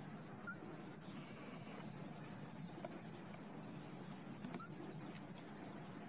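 Insects chirring outdoors: a steady high-pitched drone, with a few faint short chirps over it.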